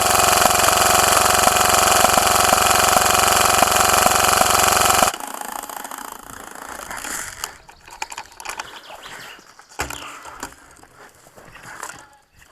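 G&P M249 airsoft electric gun firing one long sustained burst, its motor and gearbox cycling rapidly and steadily, then cutting off suddenly about five seconds in. Quieter scattered clicks and pops follow.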